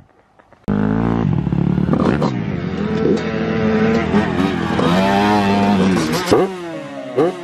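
Dirt bike engine running and revving, its pitch rising and falling, starting abruptly about a second in. Near the end it drops lower, with a couple of sharp revs.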